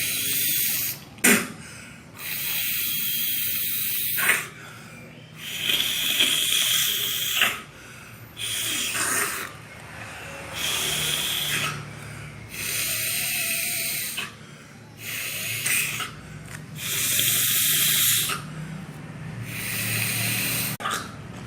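A person snorting hard through the nose again and again: about nine long, hissing snorts of one to two seconds each. This is gurah herbal nasal therapy, with the strain meant to drive mucus out of the nose and sinuses.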